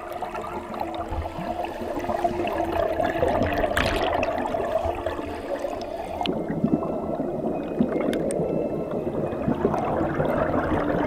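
Stream water gurgling and rushing steadily, with a few faint held tones in the first half.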